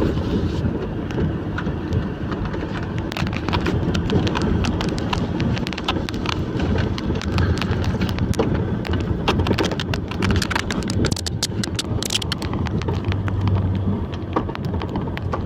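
Logging truck engine running steadily, with a rapid, irregular clatter of knocks and ticks over it that is thickest in the middle.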